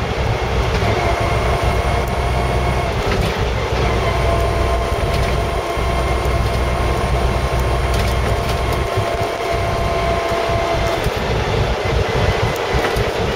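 Land Rover Series 3 driving on the road, heard from inside the cab: a steady engine and drivetrain rumble with road noise, and a steady whine over it from about a second in until near the end. The owner notes a noisy back axle on this drive.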